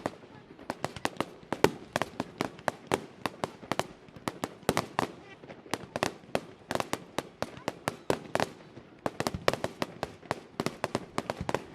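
Fireworks display going off in a rapid, irregular barrage of sharp bangs and pops, several a second, with no let-up.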